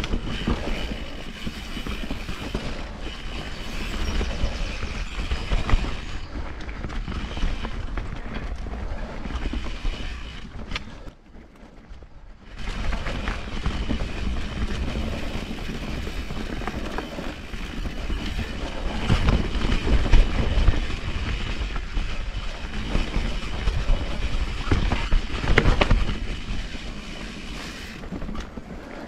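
Vitus Mythique 29 VRX mountain bike riding down a rough singletrack trail: wind buffeting the microphone, tyres over dirt and roots, and the bike's chain and frame rattling with frequent knocks. It briefly goes quieter about eleven seconds in.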